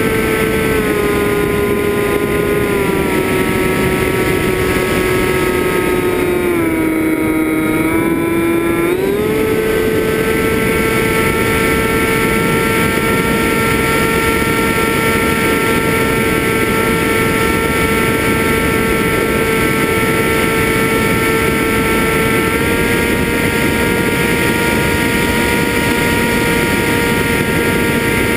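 FPV quadcopter's motors and propellers whining steadily. The pitch sinks gradually over the first few seconds, dips lower for a couple of seconds around seven seconds in as the throttle is eased off, then jumps back up and holds.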